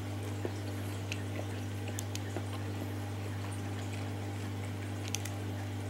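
Steady low hum in the room, with a few faint, short clicks scattered through it.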